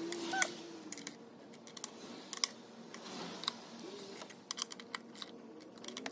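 Hand ratchet clicking in short, irregular strokes as the intake plenum bolts on a VQ35DE V6 are tightened, with small metallic taps of the tool against the bolts and manifold.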